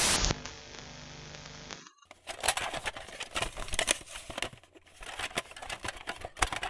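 Retro VHS-style static sound effect: a short loud burst of static dropping to a softer hiss, a brief silence about two seconds in, then irregular crackling and clicking.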